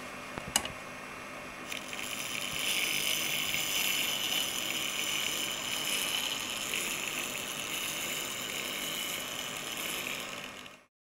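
A sharp click about half a second in, then the small electric motor and gearing of a 1:76 scale radio-controlled AEC pick-up truck model running with a steady high-pitched whine as the truck drives, cutting off suddenly near the end.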